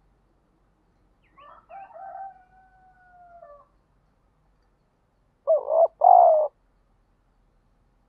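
Spotted dove cooing: a fainter drawn-out call from about one and a half to three and a half seconds in, then two loud short coos in quick succession about six seconds in.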